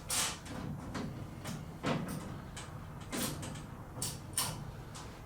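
Metal parts being handled during assembly: a series of short clicks and scrapes as square-neck bolts are pushed through a caster's mounting plate into the square holes of a steel tool cart.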